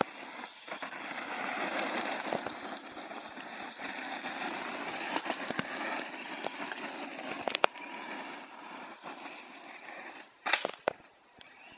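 Hot Bodies E-Zilla electric RC monster truck running over loose gravel: a steady crunching hiss of tyres on stones, with a few sharp clicks about two-thirds through and again near the end.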